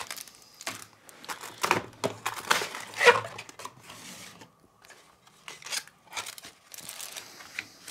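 Paper instruction leaflets and cardboard packaging rustling and crinkling as they are handled and set down on a desk, in irregular bouts with a louder rustle about three seconds in.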